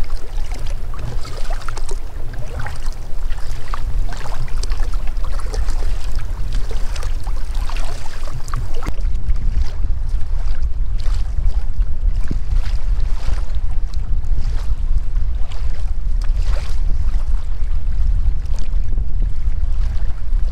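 Wind buffeting the microphone with a steady low rumble, over water splashing and slapping against a sea kayak's hull as it is paddled through choppy water.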